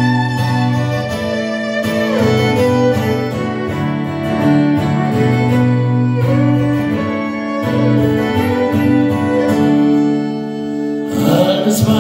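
Live violin playing a slow melody over acoustic guitar accompaniment, with long held notes and no singing.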